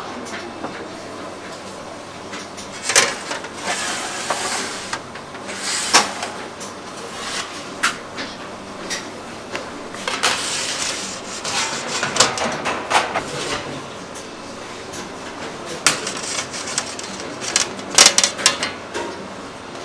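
Irregular metal clanks, knocks and scraping as baked bagels are taken out of a stainless deck oven on a metal peel and set down on perforated metal baking trays, with a few sharp clacks standing out.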